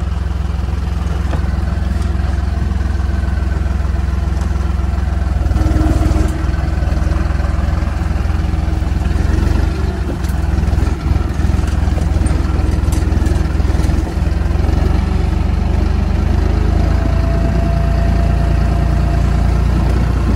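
Massey Ferguson tractor engine running steadily as the tractor is driven along orchard rows, with a brief dip in loudness about halfway through.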